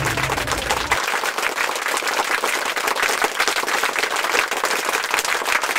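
Crowd applause, many hands clapping steadily, laid in as an edited sound effect.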